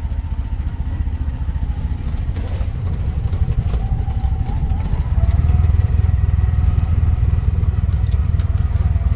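Three-wheeled mototaxi's small engine running steadily as it drives along, a deep rumble under a faint whine. About four to five seconds in the whine rises in pitch and the engine gets louder.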